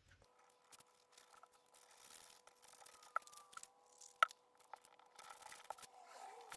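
Faint sounds of paper cards being handled, glued and pressed down: soft rustles and a few light taps, the sharpest about three and four seconds in.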